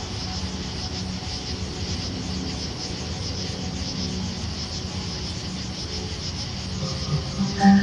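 Crickets chirping steadily in the night air over a low sustained tone; near the end, several sustained tones swell in and grow louder.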